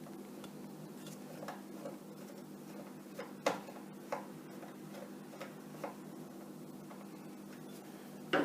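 Small screws being driven into a light fixture's DMX card with a screwdriver: scattered small clicks and taps, about eight, the loudest about three and a half seconds in, over a steady low hum.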